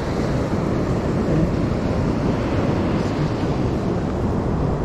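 Steady wind noise on the microphone, with surf washing on the beach beneath it.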